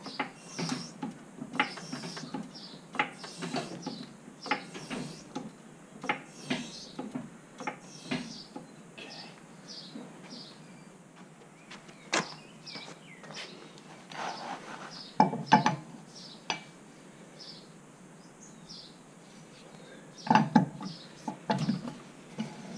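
Irregular metallic clinks and knocks of hand tools working at a car wheel as the car is jacked up and a cross wheel brace is set on the wheel nuts. The loudest clatter comes about fifteen seconds in and again near the end.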